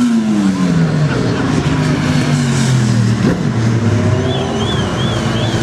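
Motorcycle engines: one bike passes close, its engine note falling in pitch over the first two seconds, then engines keep running at a low steady note. From about four seconds in, a high warbling electronic tone rises and falls over them.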